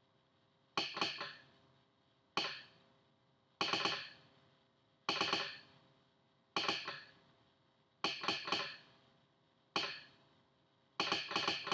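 Telegraph sounder's armature clicking out Morse code under Arduino control, spelling out the letters of "message" one at a time. Each letter is a short group of sharp clicks with a brief ring, with a pause of about a second and a half between letters.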